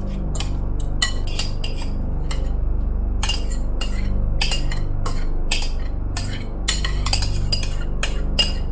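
A spoon clinking and scraping against a mixing bowl while stirring a thick mashed-potato mixture: irregular sharp clinks, two or three a second, over a steady low hum.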